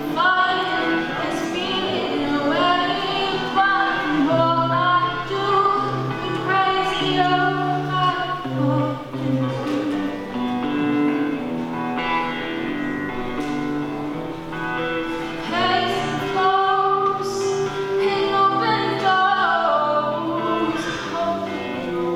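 A young female singer singing a slow song live, with held, gliding notes over a sustained instrumental accompaniment.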